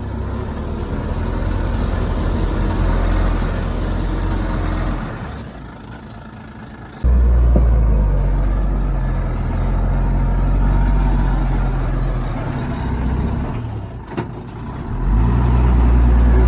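Heavy diesel earthmoving machinery running loud and low. The engine sound falls away about five seconds in, comes back abruptly about seven seconds in, and dips briefly near the end before swelling louder again.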